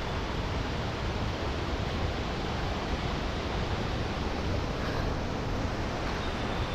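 Steady, even rushing noise outdoors, with no distinct events.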